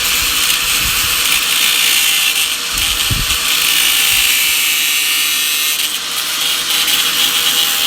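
Electric angle grinder with a metal-cutting disc running steadily under load, grinding away metal in a continuous high hiss over a steady motor whine. A part is being shaved down to fit the hub.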